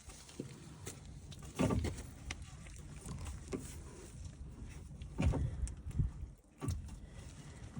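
Irregular clunks and scrapes of metal parts being handled under a 1998 Dodge Dakota as its pitman arm is lifted up onto the steering gearbox's shaft. The two loudest knocks come at about a second and a half in and about five seconds in.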